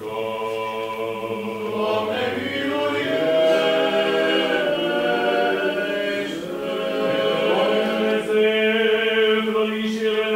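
Romanian Orthodox church chant: several voices sing unaccompanied in slow, long held notes, with the melody moving to new pitches every few seconds.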